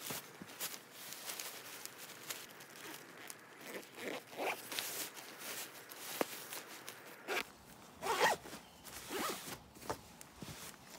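Zipper of a fabric tent carry bag being pulled shut in several short runs, the loudest a little after the middle, with rustling of the packed tent fabric.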